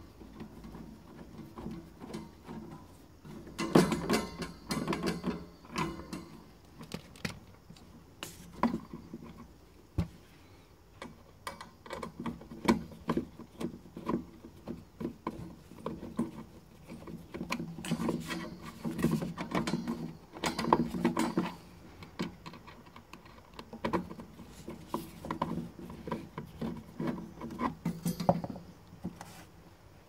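Screwdriver working the screws and sheet-metal parts at the back of a small refrigerator: irregular metal clicks, taps and scrapes, coming in several busier clusters.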